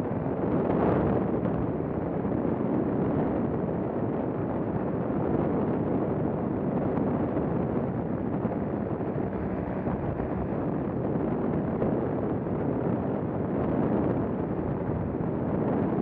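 Strong wind rushing and buffeting over the microphone of a paramotor in flight, steady throughout with a brief swell about a second in, the paramotor's engine running beneath it under power.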